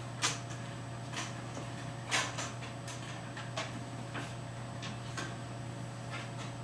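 Room tone with a steady low hum, broken by scattered light clicks and knocks, about ten in all, the loudest a quarter of a second in and again a little after two seconds.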